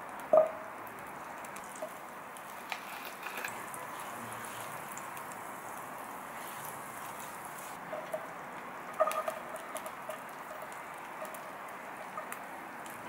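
Butter sizzling as it melts in a ceramic-coated frying pan, a steady crackling hiss, while a silicone spatula stirs it. A sharp knock just after the start and a few quick taps about nine seconds in.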